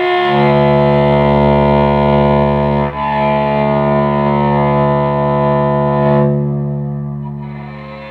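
Electric cello bowed in long, sustained low notes, with a brief break near 3 s where the bow changes direction. The note fades away over the last couple of seconds.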